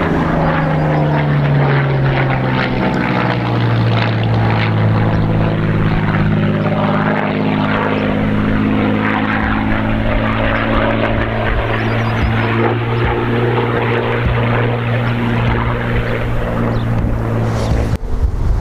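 Supermarine Spitfire's V12 piston engine running as the aircraft flies its display pass, the pitch dropping about two to three seconds in, then holding steady. Near the end the engine sound cuts off abruptly into wind noise.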